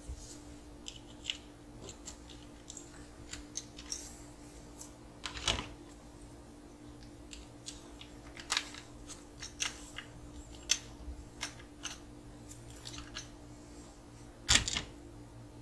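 Small clicks and taps from hands fitting plastic battery stays and metal body clips onto an RC car chassis, with two louder knocks about five seconds in and near the end, over a faint steady hum.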